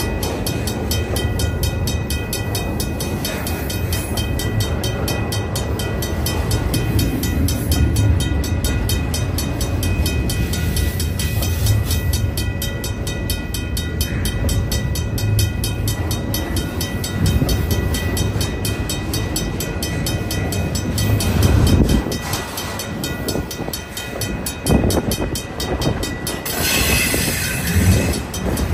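Container well cars of an intermodal freight train rolling past close by: a steady rumble of steel wheels on the rails with rattling. In the last several seconds the rumble thins into a few separate knocks.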